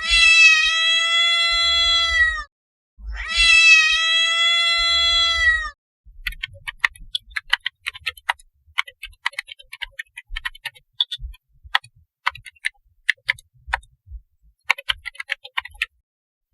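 Two long, steady meow-like cries, each about two and a half seconds, followed by a run of irregular sharp clicks and ticks.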